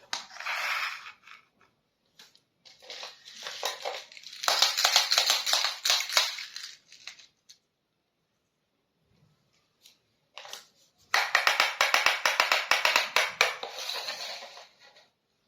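Crinkling and rustling of plastic as miniature toy packaging and pieces are handled, in three spells of rapid crackles with a pause of a few seconds in the middle.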